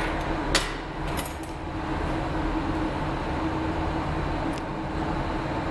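Steady roar and hum of a glassblowing hot shop's gas-fired furnace, with a few sharp metal clinks about half a second in, a little after a second, and near the end.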